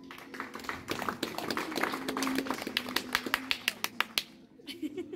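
A small audience applauding, with separate claps plainly heard, tapering off after about four seconds.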